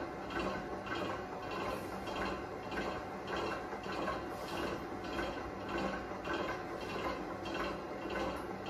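Stand mixer motor running steadily at speed 5 while it creams butter and icing sugar in a stainless steel bowl. The beater gives a swishing churn that pulses regularly, about twice a second, over a steady hum.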